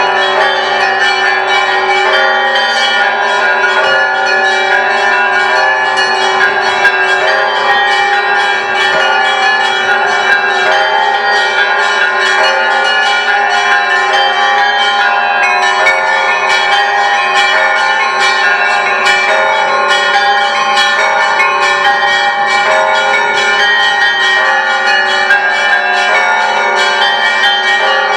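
Orthodox church bells ringing together in a continuous peal: quick strikes of the smaller bells over the steady hum of the larger ones, at an even level throughout.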